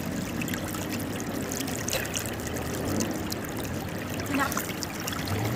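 Shallow river water splashing and trickling around people wading through it, with many small scattered splashes.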